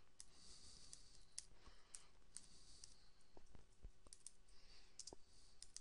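Faint, irregular clicks of computer keyboard keys as a search phrase is typed.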